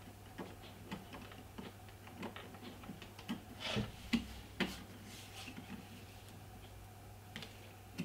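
Light clicks and taps of an 8 GB memory module being lined up and slid into the memory slot of an iMac with Retina 5K, with a few sharper clicks about halfway through, over a faint steady hum.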